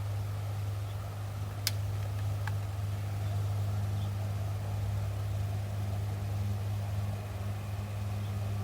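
An engine idling steadily with a low, even drone, and a single sharp click about two seconds in.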